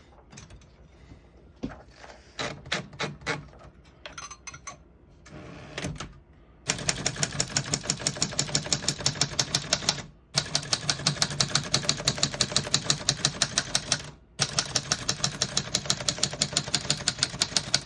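1959 Royal Royalite portable typewriter: a few scattered clicks from the machine at first, then rapid, even keystrokes in a continuous run of typing, broken twice by short pauses.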